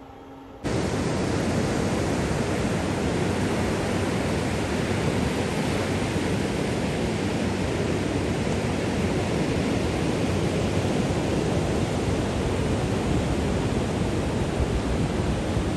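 A steady, even rushing noise that cuts in suddenly about half a second in and holds at one level throughout.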